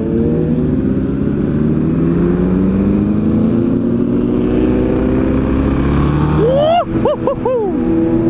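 Yamaha XT 660's single-cylinder four-stroke engine under way, its pitch climbing steadily as the bike accelerates. Near the end it revs quickly up and down several times, over wind noise.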